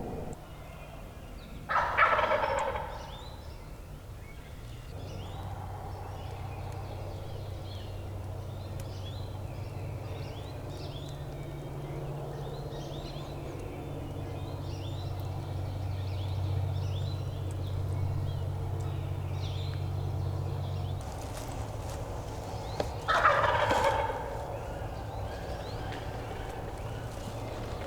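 Wild turkey gobbling twice, about twenty seconds apart, each gobble a short loud rattling call lasting about a second.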